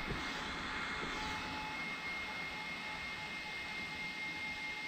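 Arrma Kraton EXB RC truck's brushless motor and tyres running at a distance on a 6S speed pass: a steady whirring hiss with a thin, steady high whine.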